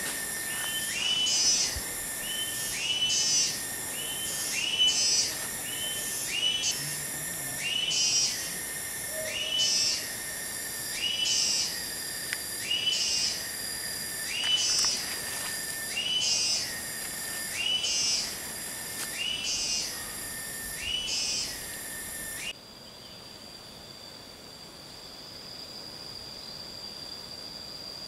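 A forest animal's call, a quick rising whistle repeated about every one and a half seconds, stopping abruptly about two-thirds of the way through. A steady high whine carries on beneath it and after it.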